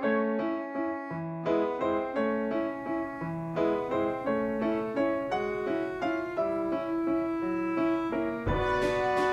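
Background piano music: a melody of separate notes over a light accompaniment, growing fuller near the end.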